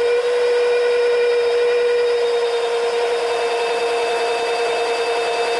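Brushless rear hub motor spinning a bicycle wheel unloaded at full speed on a 72-volt controller, a loud steady electric whine of one held pitch with fainter higher tones over a rushing hiss.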